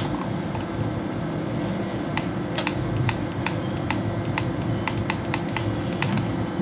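Computer mouse clicking, a run of about fifteen sharp clicks starting about two seconds in, several a second and some in quick pairs, as points of a selection polygon are placed. A steady low room hum runs underneath.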